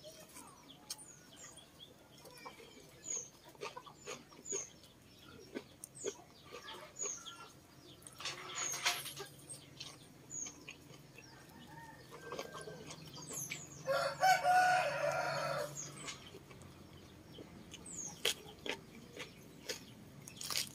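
Close-up eating sounds of noodles, octopus and lettuce being chewed and slurped, with wet mouth clicks and smacks, while short high chirps sound now and then in the background. A rooster crows once about fourteen seconds in, the loudest sound.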